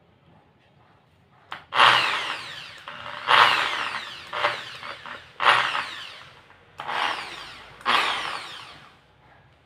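Bosch GSB 550, a 550 W impact drill, run in about five short bursts. Each starts sharply and winds down with a falling pitch.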